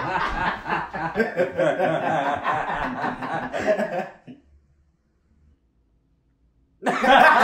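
People laughing and chuckling for about four seconds, then a gap of near silence, then loud laughter breaks out again near the end.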